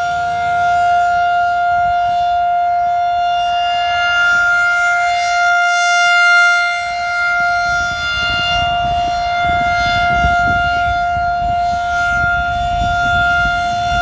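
Federal Signal 2001-SRN rotating tornado siren sounding its steady alert tone, one held pitch that swells slightly in loudness as the rotating horn swings toward the listener about six seconds in.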